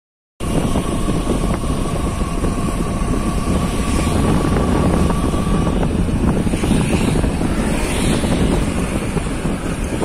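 Steady road noise from riding in an open vehicle along a city street: engine and tyre rumble with wind buffeting the microphone. A thin steady whine runs through the first five seconds or so.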